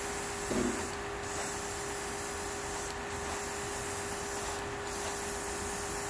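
Gravity-feed airbrush spraying paint onto an acrylic model: a steady hiss of air and paint, broken briefly three times as the trigger is let off. A steady low hum runs underneath.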